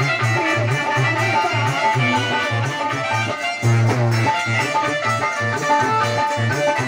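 Live Hindi devotional folk music in an instrumental passage: a steady, rhythmic drum beat under a sustained melody line.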